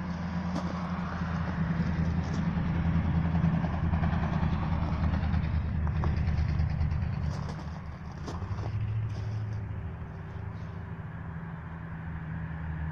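A motor vehicle's engine running with a steady low hum, easing off about eight seconds in.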